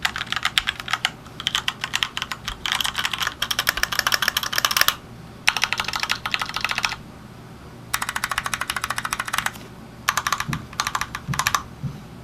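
Typing on a Keychron K2 mechanical keyboard: rapid keystrokes in runs of one to three seconds, broken by short pauses, with the last few runs shorter and choppier.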